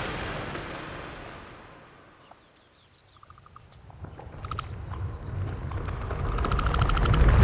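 A noisy rushing swell fades away to near silence, then short rapid chirping trills from small animals sound three times. A low rumbling whoosh builds up loudly toward the end.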